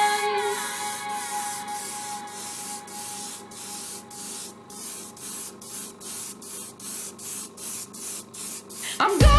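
Airbrush spraying in short repeated bursts of hiss, about two a second and coming quicker toward the end, as paint is dusted onto a foam model.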